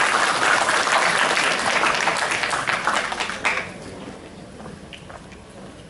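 Audience applauding, the clapping dying away about three and a half seconds in, leaving a few scattered faint taps.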